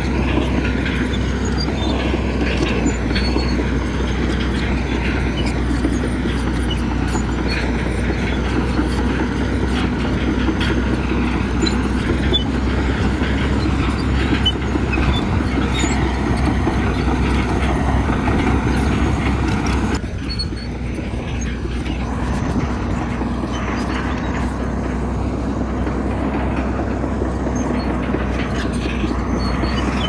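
Heavy diesel earthmoving machinery running steadily under load with a dense mechanical clatter. It dips slightly about two-thirds of the way through, then carries on.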